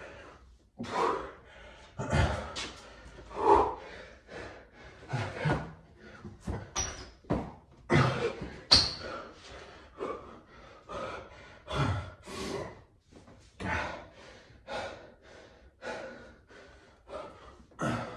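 A man's hard, rapid breathing during bodyweight squats and burpees: sharp exhales and gasps about once a second, with a few dull thuds on the tiled floor.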